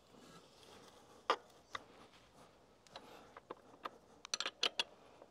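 Spanner on the rear axle nut of a Yamaha Ténéré 700 being tightened by hand: scattered sharp metal clicks and clinks as the tool is worked and repositioned, with several in quick succession near the end.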